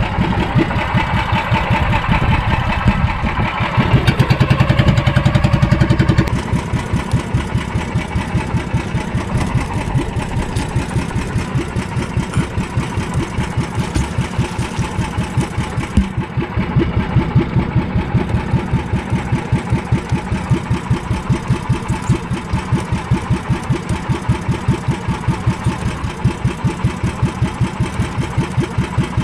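Small engine of a motorized fishing boat running with an even, chugging beat. It runs louder for about two seconds, around four seconds in, then settles back to a steady pace.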